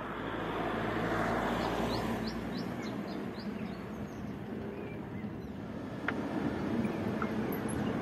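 Outdoor street ambience: a vehicle passes, swelling and fading over the first few seconds, while a bird gives a quick run of short rising chirps, about four a second. A single sharp click comes near the end.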